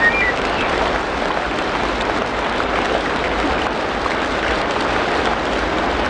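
Steady, dense rain falling, an even hiss of many drops that holds at one level throughout, with a brief bird chirp right at the start.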